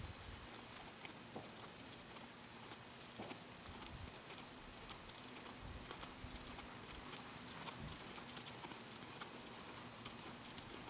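Hoofbeats of a saddled horse walking on soft arena sand: faint, muffled steps with light clicks throughout.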